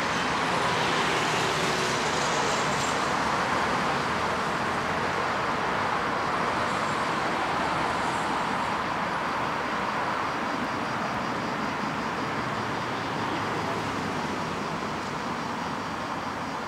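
Steady rumble of city traffic, an even noise with no distinct events, easing slightly towards the end.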